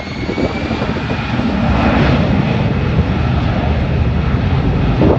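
Airbus A320's twin jet engines at takeoff thrust: a loud, steady rumble with a thin high whine slowly gliding upward, the rumble growing louder about two seconds in.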